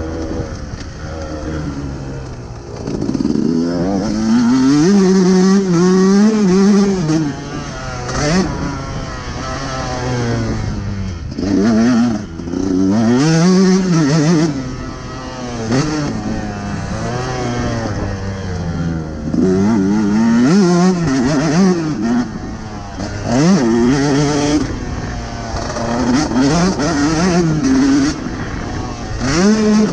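KTM 150 SX two-stroke single-cylinder engine being ridden hard, its pitch climbing as the throttle is held open, then dropping back every few seconds as it is shut, over and over.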